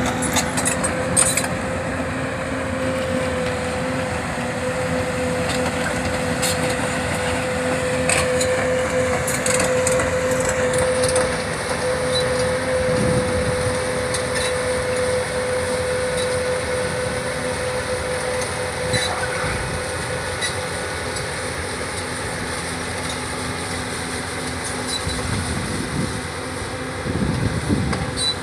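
Hyundai R330LC-9S crawler excavator running, its diesel engine and hydraulics giving a steady high whine that fades out about two-thirds of the way through, with scattered knocks and clatter from the machine at work.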